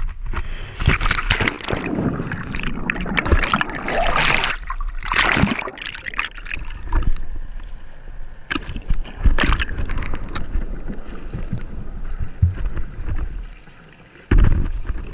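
Water splashing and churning as a swimmer plunges in, then muffled underwater bubbling and water rush with scattered sharp knocks, heard through a GoPro's waterproof housing.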